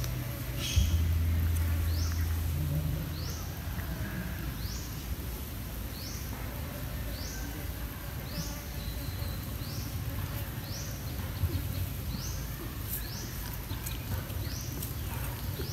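Outdoor ambience with a short, high, rising chirp repeated about once a second, and a low hum that is strongest in the first few seconds and then fades.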